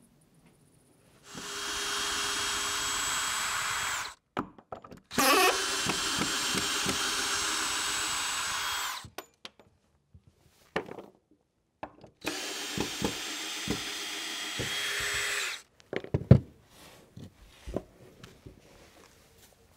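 Electric drill running in three spells of a few seconds each, with a few knocks and clicks between and after them.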